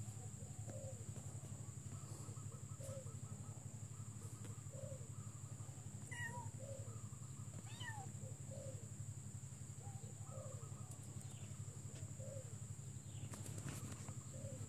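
Kittens mewing faintly, short mews repeated about one every two seconds.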